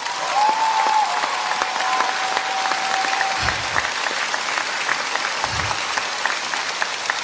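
Large audience applauding steadily, with one long held cheer over the clapping for the first three seconds or so.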